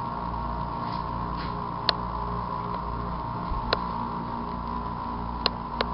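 Steady background hum of a room, with a few faint short clicks.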